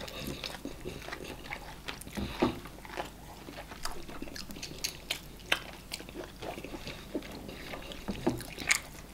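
Close-up eating sounds of two people eating eba and okra soup by hand: irregular wet chewing and lip-smacking clicks, with fingers working the slimy soup in the bowl.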